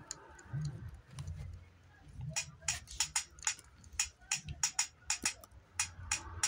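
A run of sharp taps or clicks, a few a second and unevenly spaced, starting about two seconds in over a low hum.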